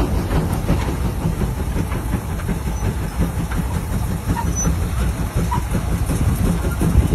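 Steady low rumble and clatter of heavy machinery: a giant multi-bottom plow being pulled through a field.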